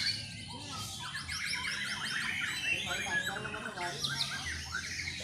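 Several caged white-rumped shamas singing at once, a dense tangle of overlapping rapid whistles, trills and chirps.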